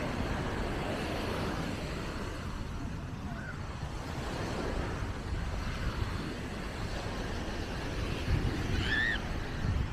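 Seaside ambience: wind buffeting the microphone over a steady wash of surf, with a short high-pitched call near the end.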